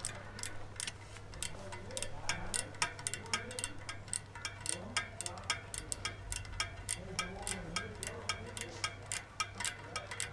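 Rapid ticking, about five sharp clicks a second, over a steady low hum.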